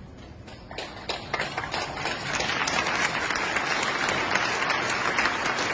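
Audience applauding: a few scattered claps about a second in, swelling within a couple of seconds into full, steady applause.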